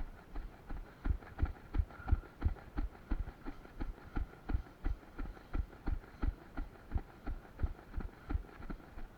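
Running footsteps: a steady run of dull thuds, about three a second.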